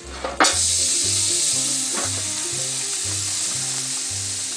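Water squirted onto the hot steel griddle top bursts into a loud, steady sizzle and hiss about half a second in, making steam under the cover around the cooking pork loins. A low steady beat of background music runs underneath.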